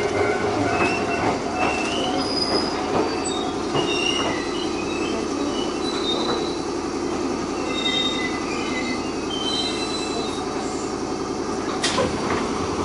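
Iyo Railway 610 series electric train braking to a stop at a station, heard from inside the car: steady running noise and hum with short high-pitched squeals as it brakes, then a sharp click near the end as it comes to rest.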